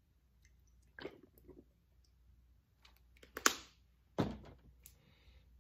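Makeup brushes and cleaning supplies being handled: a few sharp clicks and knocks, the loudest about three and a half seconds in, with a soft rustle near the end.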